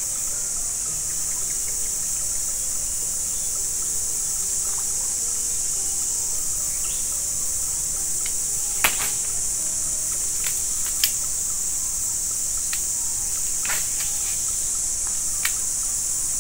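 Steady, high-pitched chorus of insects in swamp forest, with a few sharp clicks, the loudest two about nine and eleven seconds in.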